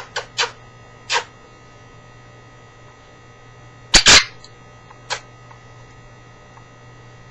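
Quaker parrot making a few short, sharp smacking sounds, answering a request for a kiss: a couple near the start, one about a second in, a louder double smack about four seconds in and a last one just after five seconds. A steady low electrical hum runs underneath.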